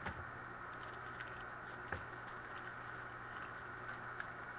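Light, scattered clicks and soft rustles of trading cards and plastic card holders being handled, over a steady low hum.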